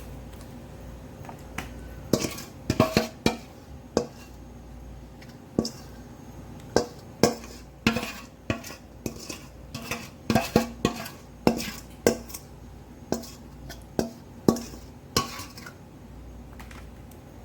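Metal utensils and dishware clinking, knocking and scraping in irregular clatters as marinated chicken drumsticks are moved from a bowl onto an aluminium baking tray.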